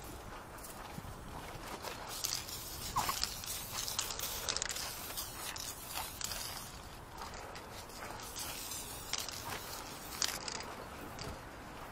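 Aerosol spray paint can hissing in repeated bursts of varying length as it sprays onto a corrugated metal wall, with scuffing and rustling in between.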